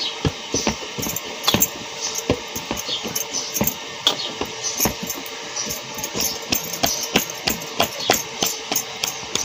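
Hands kneading and pressing a lump of bhakri dough in a hammered metal plate: irregular knocks and taps of hands and dough against the metal, a few a second, with bangles clinking.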